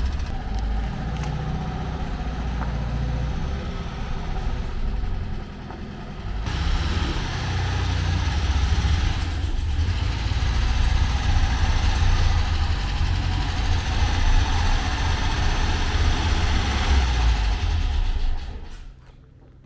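1968 Porsche 912's air-cooled flat-four engine running, a steady low rumble that gets louder about six seconds in and drops away near the end.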